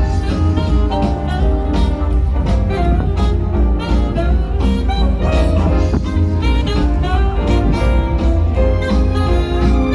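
Christmas show music in a jazzy swing arrangement, with brass and saxophone over a bass line.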